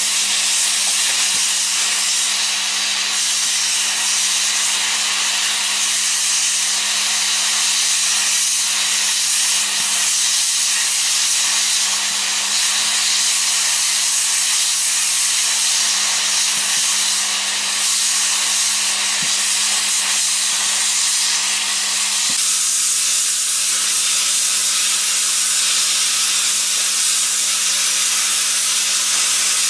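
Hot-air plastic welding gun (GEP-2) blowing a steady hiss of hot air from its nozzle while the polyethylene barrel and filler strip are heated and fused. A steady low hum runs underneath.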